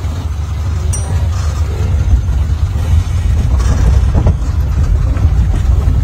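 Steady low rumble of a vehicle in motion, heard from on board, with a few faint knocks.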